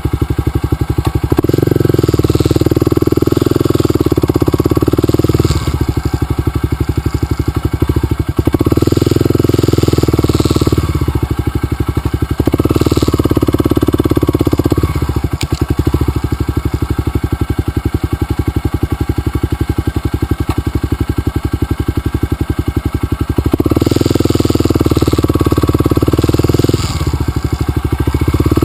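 Dirt bike engine running at low speed on a trail. The throttle opens in several stretches of a few seconds each, with steadier, quieter running between them.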